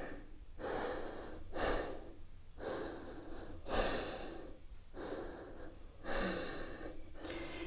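A woman breathing audibly in and out while holding a balancing yoga pose, short breaths coming about once a second.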